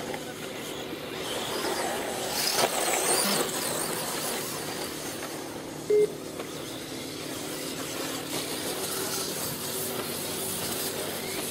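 Nitro-powered 1:8 scale off-road RC buggies running, their small glow-fuel engines whining higher and lower as they rev. A brief loud beep sounds about six seconds in.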